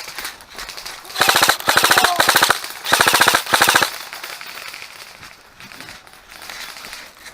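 Airsoft rifle firing on full auto: four quick bursts of rapid clicking shots, about fifteen a second, in the first half, then fainter scattered firing.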